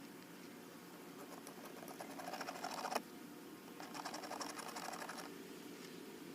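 Two bursts of rapid mechanical ticking from a tool driving screws on a Corvette tail light. The first builds up and ends in a sharp click about three seconds in; the second follows about a second later and fades away.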